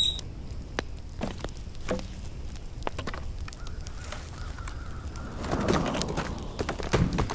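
Forest ambience: a short bird chirp at the very start, then scattered light clicks over a low rumble, with a faint wavering whistle in the middle.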